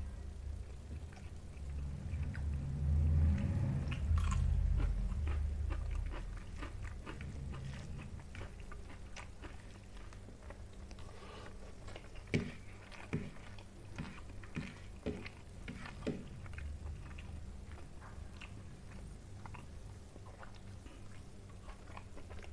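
Close-miked chewing of a mouthful of rice and fish curry, with many short wet mouth clicks and smacks. A low rumble runs through the first several seconds.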